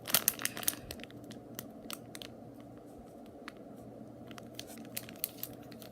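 Plastic squishy packaging being handled: a quick run of sharp crackling clicks in the first second, then scattered single crinkles over a steady low room hum.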